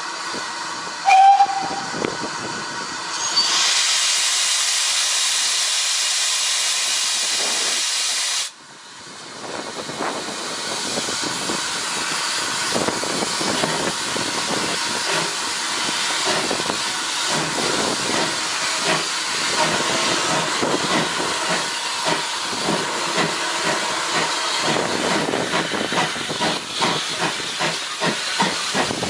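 GWR 16xx pannier tank steam locomotive giving a short whistle blast about a second in, then a loud hiss of escaping steam that breaks off suddenly. The hiss returns with an uneven pulsing beat that quickens toward the end.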